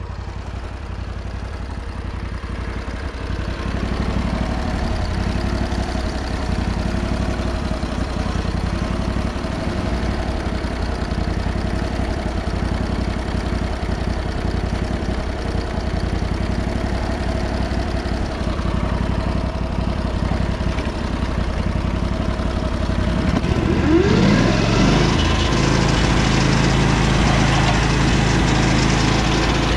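Briggs & Stratton Vanguard 18 hp V-twin engine on a Lucas Mill swing-blade sawmill, running steadily at idle. About 24 seconds in it revs up quickly and holds a higher, louder speed to the end.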